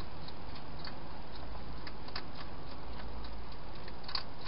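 A wild hedgehog eating from a bowl: small irregular clicks and smacks, with a slightly louder one near the end, over a steady hiss.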